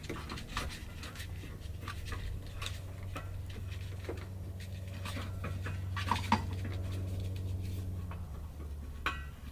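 Small clicks and taps of a 1-pound propane bottle being fitted to the water heater's regulator, over a steady low hum that stops about eight seconds in.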